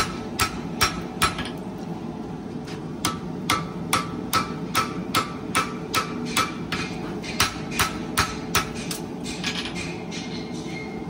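Farrier's hammer striking a red-hot horseshoe on an anvil while hand-forging it: a steady rhythm of sharp metallic blows, about two and a half a second. The blows pause briefly near the start and turn to lighter taps near the end, over a steady low rumble.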